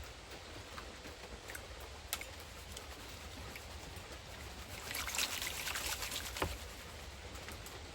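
Water sloshing and splashing in a gold pan being worked, with scattered small clicks; a louder burst of splashing comes about five seconds in and ends in a sharp click.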